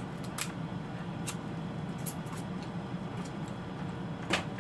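Scattered small clicks and cracks of crab shells being picked apart and eaten by hand, with one sharper snap near the end, over a steady low hum in the room.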